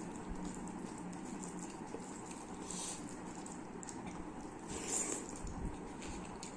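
Fingers squishing and mixing rice with raita on a steel plate: soft, wet sounds, with a louder, sharper sound about five seconds in.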